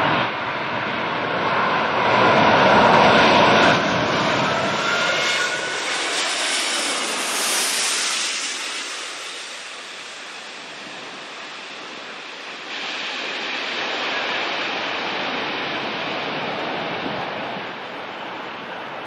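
Four-engined Airbus A380 jet airliner on low approach to land, its jet engines giving a steady rushing noise with a faint rising whine in the first few seconds. The level jumps up and down a few times.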